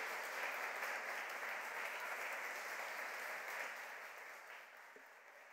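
A roomful of people applauding, a steady patter of many hands clapping that fades away near the end.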